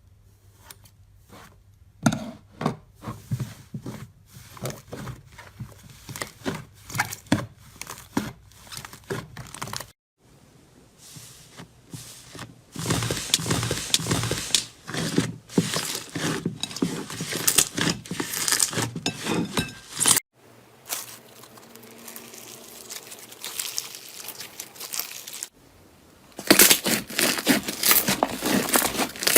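Close-miked slime and soap ASMR handling sounds in a run of short clips: quick crackling pops, then denser crunching and squishing stretches, changing abruptly at each cut.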